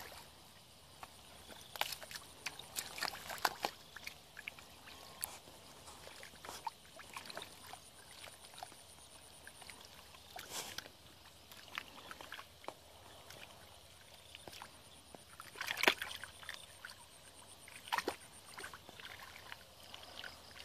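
Hands groping and sloshing through shallow muddy water while feeling in the mud for fish: irregular squelches and splashes, the loudest about 16 seconds in.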